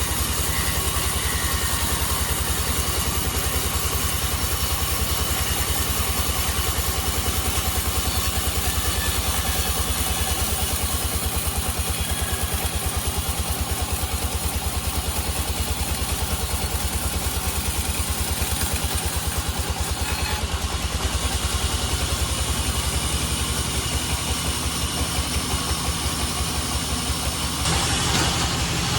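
Band sawmill's engine running steadily with a fast, even low pulsing; near the end the sound shifts, adding a brighter hiss.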